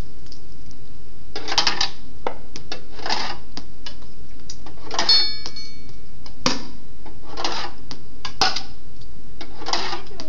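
Metal bearings clattering and rattling one after another, about one every second or two, as they bounce off a chair and roll through cardboard and plastic tubes into a can, with sharp clicks in between. About five seconds in, one strikes with a bright metallic ring.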